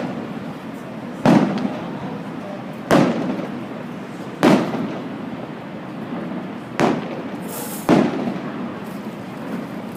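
Aerial fireworks shells bursting: five loud booms roughly one to two seconds apart, each followed by a rumbling echo, over a steady background noise. A short hiss comes just before the last boom.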